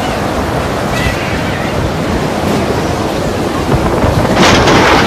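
Violent storm wind blowing hard against the microphone, with a louder rushing gust near the end.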